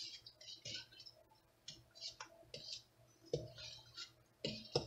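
Wooden spatula scraping and clicking against the inside of an enamelled pot as a thick mixture of chopped peaches and sugar is stirred to dissolve the sugar. Faint, with a few sharper knocks in the second half.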